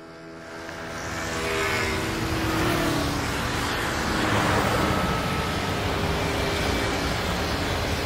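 Road traffic noise swells in over the first two seconds, then holds as a steady rush of passing cars.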